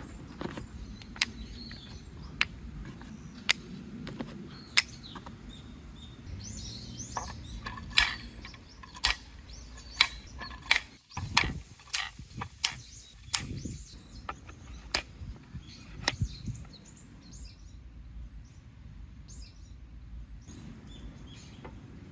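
Marbles and wooden balls rolling down a marble run laid in the grooves of a wooden park bench, clacking in sharp single knocks. The knocks come about once a second at first, then in a quicker cluster in the middle. Birds chirp in the background.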